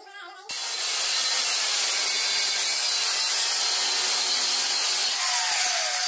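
Angle grinder cutting steel square bar: a loud, steady grinding hiss that starts abruptly about half a second in and cuts off just before the end, with a falling whine as the disc winds down.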